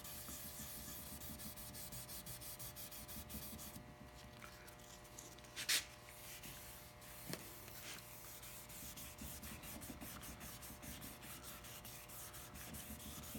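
Fine 3000-grit wet sandpaper rubbing softly over the wet, soapy varnish of a wooden model hull: the finish wet sanding that flattens the varnish toward a glassy surface. A short sharp tap about halfway through is the loudest sound.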